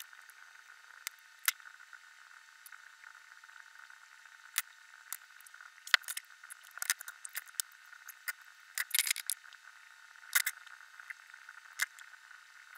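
Scattered light clicks and taps of small plastic model-kit parts and metal tweezers handled on paper, with a brief cluster of rapid clicks about nine seconds in, over a steady faint hiss.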